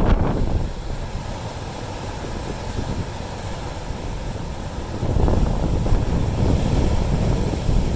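Sea waves washing onto rocks under strong wind, with wind buffeting the microphone in a deep rumble; the surge eases about a second in and swells again about five seconds in.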